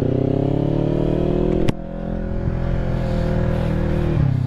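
Sportbike engine revving up under acceleration. About a second and a half in there is a click and a sudden drop in loudness. The engine then runs steadily, and the revs fall near the end.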